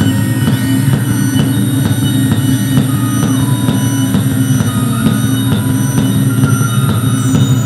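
Live electronic noise music from patch-cabled synthesizer gear: a loud, dense low drone with thin, steady high-pitched whines above it. A few mid tones step up and down in the middle, and the highest whines drop in pitch near the end.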